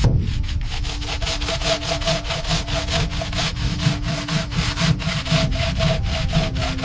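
Hand saw cutting through wood in quick, even strokes, about six a second.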